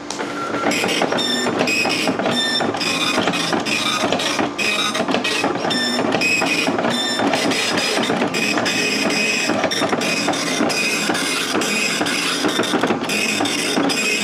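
Okidata Pacemark 3410 9-pin wide-carriage dot matrix printer printing line after line of text at speed. Its print head makes a loud, continuous rasping buzz that starts at once and changes texture from pass to pass.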